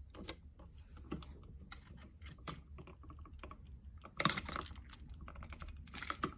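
Irregular small clicks and taps of hand work on a light switch's wiring with a flathead screwdriver, with two louder short noisy bursts about four and six seconds in.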